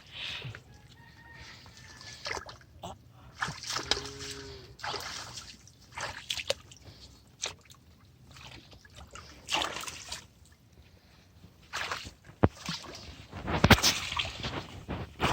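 Water splashing and sloshing in irregular bursts, growing louder near the end.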